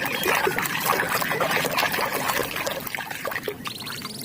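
Water trickling and splashing, with small irregular knocks and clatters, as a muddy toy animal is washed clean.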